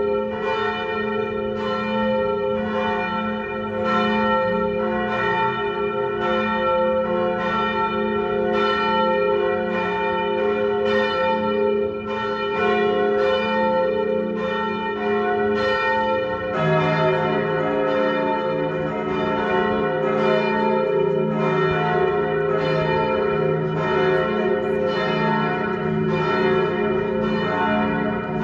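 Lund Cathedral's church bells ringing together in a continuous peal, calling to High Mass. A deeper bell joins a little past halfway through.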